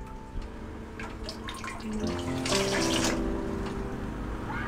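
Water running from a kitchen tap into a stainless steel sink as dishes and a cup are rinsed, the flow swelling about halfway through and again near the end.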